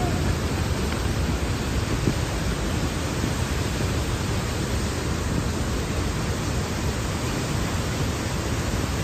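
Steady rushing noise of a heavy rainstorm.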